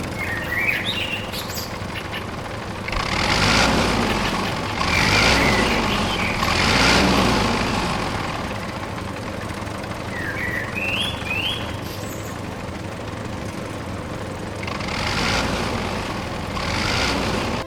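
Tractor engine running, swelling louder and easing off several times, with a few short rising chirps about a second in and again about ten seconds in.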